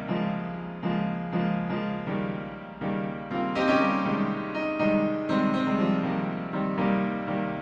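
Piano music: sustained chords and notes struck in a steady, gentle rhythm, a new note about every half second.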